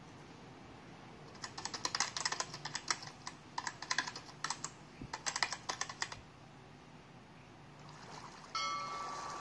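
Rapid, irregular keyboard typing clicks for about five seconds, a typing sound effect as a text caption is spelled out. Near the end a steady tone sets in suddenly and slowly fades.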